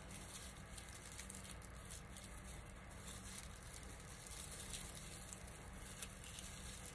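Faint rustling and crinkling of raffia strands being bunched into loops by hand, with small scattered ticks over a steady low hum.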